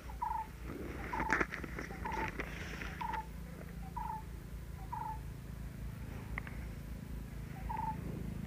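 Paper pages rustling and crackling as an exam booklet is turned to the next page, about a second in. Behind it, a short chirp at one steady pitch repeats roughly once a second.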